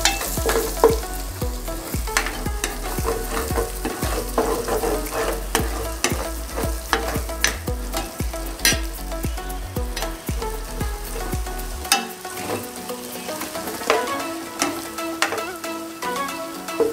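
Minced garlic sizzling and frying in hot oil in a stainless steel pot over high heat, with a metal spoon scraping and clicking against the pot as it is stirred. A low hum underneath stops about twelve seconds in.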